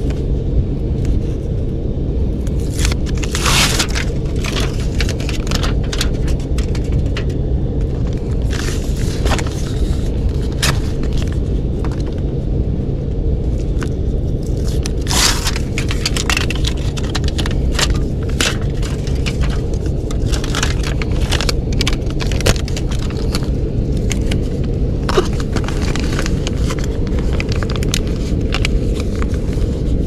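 Foil tape crinkling and crackling as its backing is peeled off and it is handled and pressed onto an air-leaking duct plenum, in many short scrapes and crackles, the loudest about 3.5 and 15 seconds in. Under it runs a steady low rumble, the air handler's blower running.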